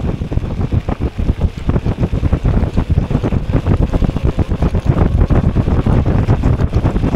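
Wind buffeting the microphone of a camera on a moving e-bike: a loud, gusty rumble that keeps rising and falling.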